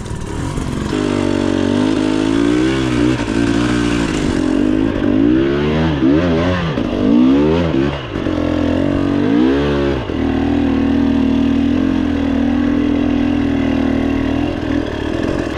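Enduro dirt bike engine revving up and down in repeated throttle bursts for several seconds, then running at a steady speed.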